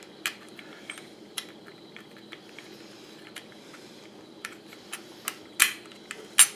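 Scattered light clicks and taps of an aluminum chassis brace being handled and seated against a Redcat Volcano EPX RC truck's plastic chassis, with two sharper clicks near the end.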